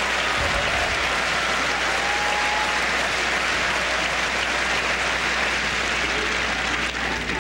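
Large tennis crowd applauding between points, a steady dense wash of clapping that eases slightly near the end.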